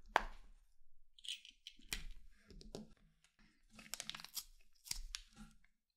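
Faint handling noises at a watchmaker's bench: scattered light clicks and short rustling scrapes of small tools and parts being moved.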